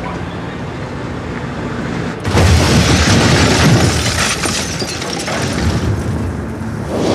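Car bomb explosion: a vehicle engine runs steadily, then a sudden loud blast a little over two seconds in, followed by a long rumble and crackling of flames as it dies down.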